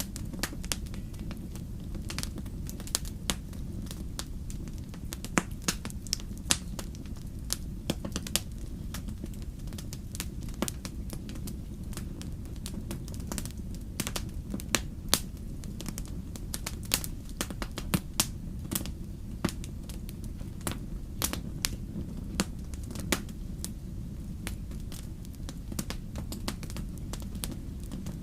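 Fire in a fireplace crackling, with frequent irregular sharp pops and snaps over a steady low rumble of the flames.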